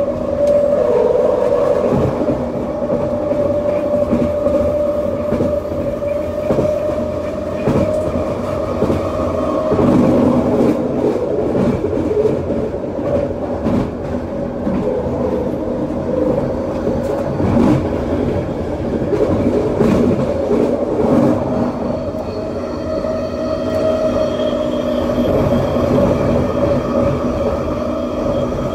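Linear-induction-motor light metro train running at speed along its guideway, heard from inside the front car: a steady motor whine over the rumble of wheels on rail, with scattered clicks from the track. Fainter high-pitched tones join in near the end as the track curves.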